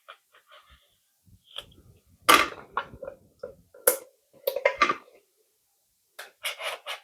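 Irregular clicks and crinkly rustles of a sealed metal mini tin being handled and its plastic seal cut open, loudest in a few sharp bursts.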